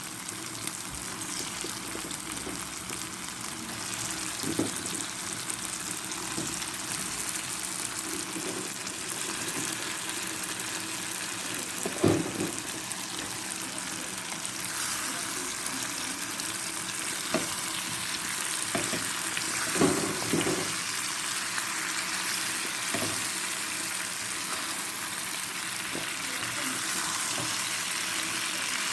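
Chicken feet sizzling in a cooking pot: a steady frying hiss, broken by a few knocks from stirring against the pot.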